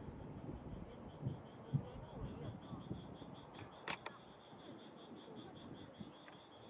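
Distant fireworks: two low, dull thuds about a second and a half in and a sharp crack near the middle, over low murmuring voices of onlookers and a steady pulsing insect chirp.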